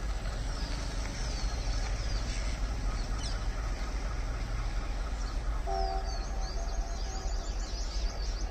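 Distant approaching train hauled by twin ALCo diesel locomotives: a steady low rumble, with the horn sounding a held chord for about two seconds some six seconds in. Birds chirp over it.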